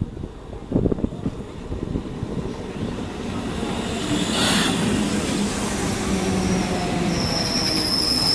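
Electric multiple unit local train running in alongside the platform and braking to a stop. Its rumble grows louder, and from about seven seconds in the wheels squeal with a high, steady whine.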